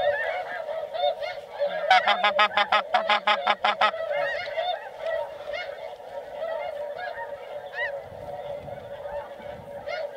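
Snow geese calling in a dense, continuous chorus of many overlapping honks. About two seconds in, a fast run of about a dozen loud, close honks lasts some two seconds.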